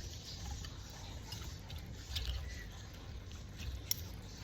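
A person chewing and biting food close to the microphone: small wet clicks and crackles, with one sharper click shortly before the end.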